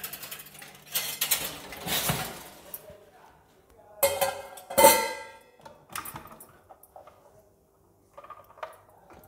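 Metal vessel clattering and clinking against the steel inner pot of an electric pressure cooker as it is set inside, one clink about halfway through ringing on briefly. A few lighter knocks near the end as the cooker's lid is brought down.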